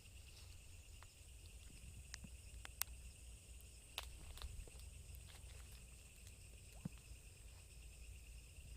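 Faint, steady chirring of night insects in several high-pitched bands, with a few sharp ticks scattered through it.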